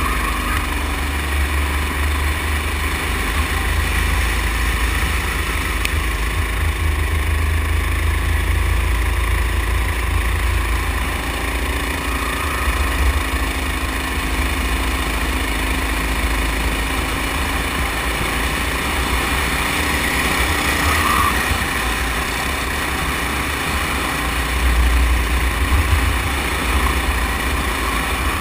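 Go-kart engine running steadily as the Sodi kart laps the track, heard from on board, under a heavy low rumble of wind on the open kart.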